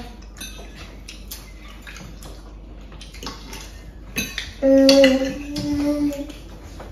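Forks clinking and scraping on dinner plates during a meal, a scatter of light clicks. About four and a half seconds in, a voice starts humming a long, steady note, louder than the cutlery.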